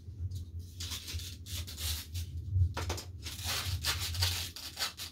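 Repeated rubbing and scraping handling sounds close to the microphone, in short rough strokes over a low steady hum.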